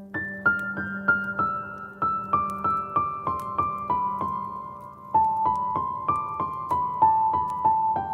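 Solo piano playing a gentle melody of single notes, about three a second, stepping downward in pitch over a sustained low bass note.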